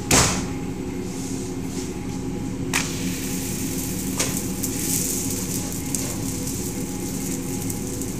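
Paratha dough handled by hand on a steel worktop and griddle: a loud slap just after the start and two lighter knocks later, over a steady hum.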